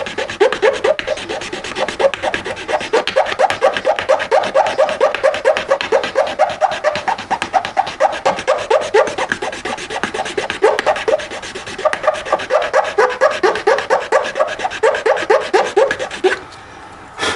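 Hand filing of a small part of a 1/64-scale diecast car: rapid back-and-forth rasping strokes, about five a second. The strokes pause briefly just before halfway through the last third and stop shortly before the end.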